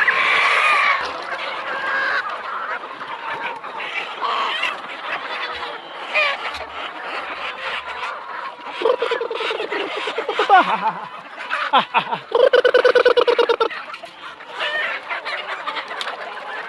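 A large flock of local chickens clucking and calling over one another. About twelve seconds in, one bird gives a louder, rapid rattling call that lasts over a second.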